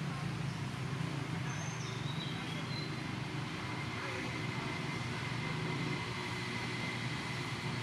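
Steady low engine rumble of passing or idling motor traffic, with a thin steady high tone for a few seconds in the middle and a few short, faint high chirps.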